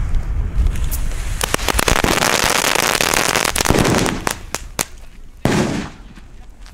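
A small firecracker chain (Knallkette) going off: a rapid, dense run of sharp cracks for about three seconds, thinning out to a few scattered pops.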